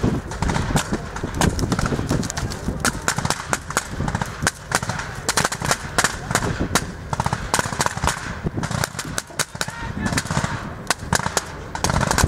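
Rifle fire from a group of soldiers: many sharp single shots and short rapid bursts, overlapping and irregular throughout.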